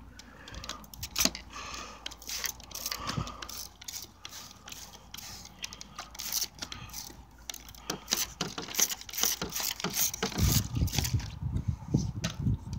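Hand trigger spray bottle pumped over and over, each pull giving a short hissing squirt of water with a click of the trigger. Low thumps come in near the end.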